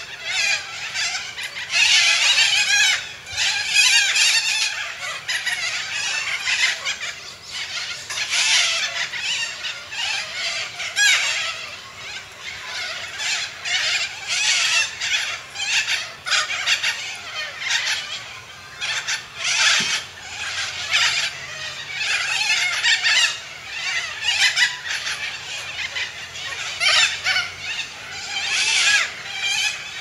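Cockatoo screeching: a long run of harsh, raspy calls in quick succession, one after another with only brief gaps.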